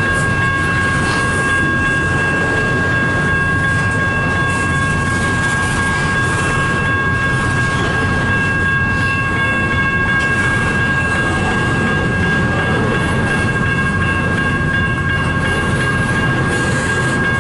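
Freight train of double-stack intermodal cars rolling slowly past close by: a steady, loud rumble of wheels on rail, with a few steady high-pitched tones held over it.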